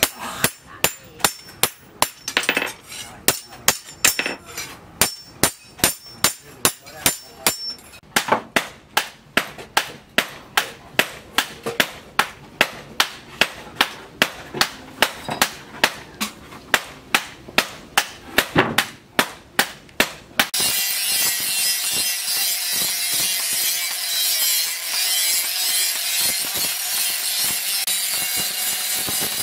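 Hand hammer striking a steel knife blank on a steel stake: sharp metal-on-metal blows at about two to three a second. About twenty seconds in, the hammering stops and an angle grinder with a flap disc cuts in, grinding the blade with a steady hiss.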